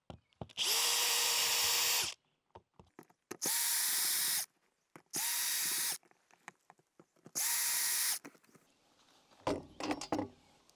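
Cordless drill/driver backing out the four screws of an RV power inlet plate: four short bursts of steady motor whine, the first about a second and a half long, the other three under a second each. A few light knocks follow near the end.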